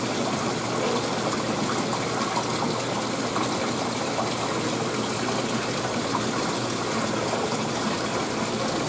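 Water rushing and bubbling steadily in a live-fish tank aerated with fine bubbles.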